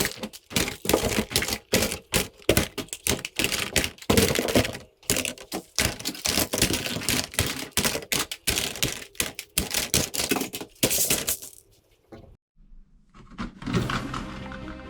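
Rapid, irregular run of sharp clicks and clatters, several a second, that stops after about eleven seconds. Music starts near the end.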